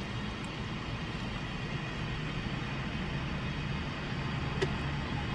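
Steady low hum of a car interior, with a short sharp click right at the start and a faint tick about four and a half seconds in.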